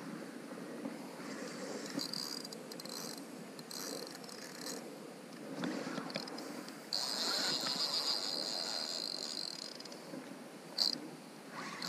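Drag of a Penn Spinfisher spinning reel buzzing in stretches as a hooked redfish pulls line off against it, the longest run about seven seconds in, with a short burst near the end. Wind and handling noise rumble underneath.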